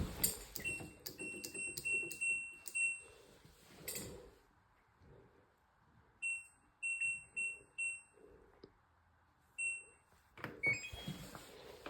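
Short, high electronic beeps from a refrigerator's control panel, in runs of about two a second: five beeps in the first three seconds, four more a little past halfway, and one near the end. A few knocks and clicks are heard near the start and about four seconds in.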